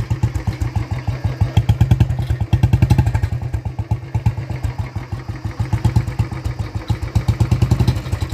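Royal Enfield Bullet 350's single-cylinder engine revved through an aftermarket Indori silencer: a fast train of deep exhaust beats that swells louder with throttle about two seconds in and again about six seconds in.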